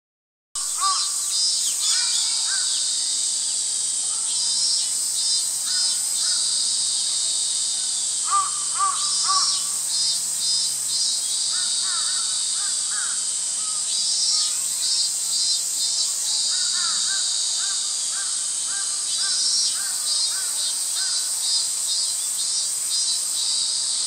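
Cicadas singing: a steady, high-pitched drone with a pulsing song that swells and fades in phrases every few seconds. Short series of lower bird calls cut through several times.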